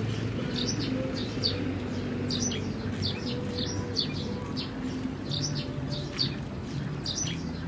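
Small birds chirping, short high calls repeating about twice a second, over a low steady hum of held tones that shift pitch now and then.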